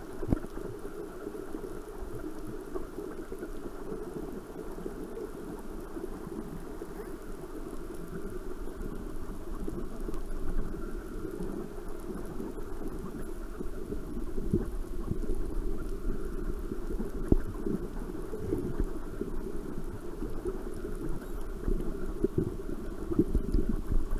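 Underwater noise heard through a submerged camera: a muffled, steady rushing with crackling and scattered clicks. It grows a little louder in the second half.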